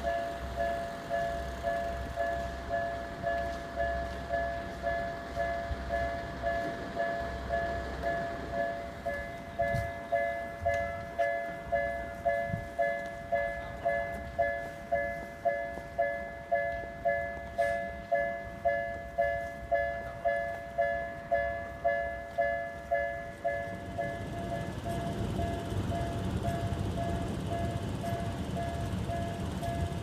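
Japanese railroad crossing warning bell ringing its electronic "kan-kan" at about two strokes a second. About 24 seconds in, the strokes become fainter and the low rumble of a train passing through the crossing rises beneath them.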